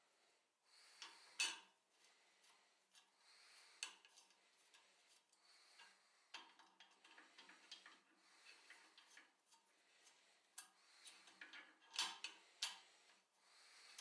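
Faint, scattered metal clicks and taps from handling a small square steel workpiece and seating it in a steel V-block clamp on a drill press table, the sharpest about a second and a half in and near the end.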